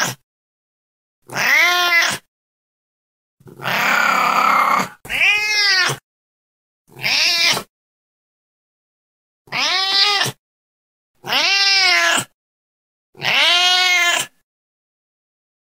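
A domestic cat meowing over and over, about eight meows with dead silence between them, each rising then falling in pitch. One about four seconds in is longer and harsher.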